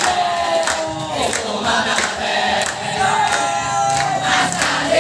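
A large group of teenage boys singing a yel-yel chant in unison, with hand claps.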